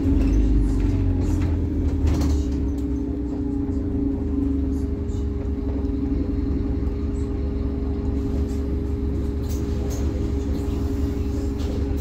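Scania N270UD Omnicity double-decker bus under way, heard from the upper deck: its 9-litre five-cylinder diesel gives a steady low rumble with a steady hum over it, easing slightly about two seconds in, with a few faint rattles from the body.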